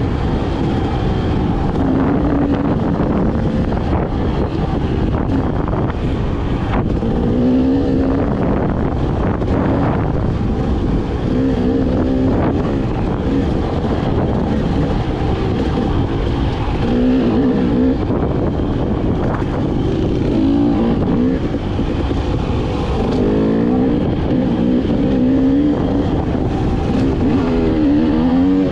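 Dirt bike engine running under load on a rough trail, its pitch repeatedly climbing and dropping as the rider works the throttle.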